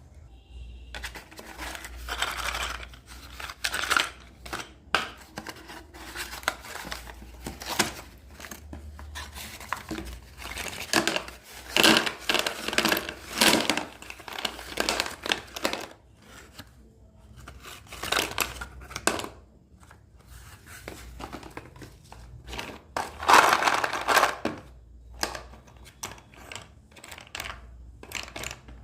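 Chalk packaging being torn open and crinkled by hand, in irregular rustling and tearing bursts, the loudest around the middle and again later on.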